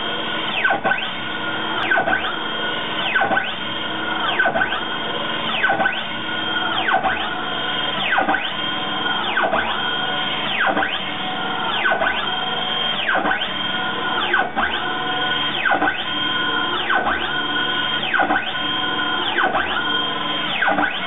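Stepper motors of a hobby CNC machine, driven by its controller in a motor speed test, moving the weight-loaded table back and forth. A whining tone ramps up in pitch, holds, then ramps back down, over and over about every second and a quarter, as the motors accelerate and decelerate on each move.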